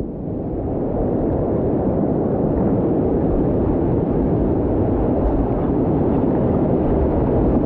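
Steady, muffled low rumble of wind and surf on a board-mounted action camera's microphone.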